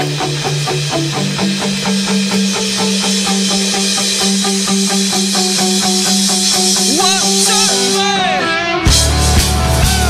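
Live rock band playing an instrumental intro: electric guitar picks a quick repeated figure over a held bass note that shifts up after about a second, with sliding notes near the end. Just before the end, the full band comes in with heavy drums and bass.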